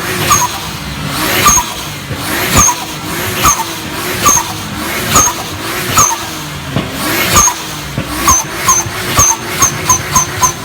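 Turbocharged Nissan Skyline engine blipped over and over, each rev ending in a short, sharp dump-valve chirp; the blips come faster near the end.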